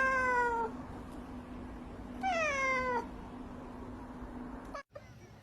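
A cat meowing twice, each meow falling in pitch, the second about two seconds in, over a faint steady hum.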